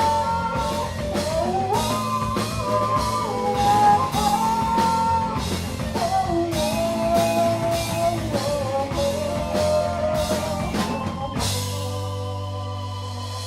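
Live rock band playing: drum kit hitting steadily under guitars and a bending lead melody. About eleven seconds in the drums stop and a held chord is left ringing and slowly fading.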